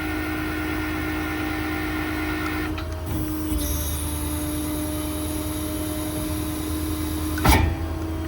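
The 6.7 Power Stroke diesel runs under PTO load, with the hydraulic system of the IMT crane whining steadily as the crane is worked. The sound shifts about three seconds in, and a single sharp metallic clunk comes near the end.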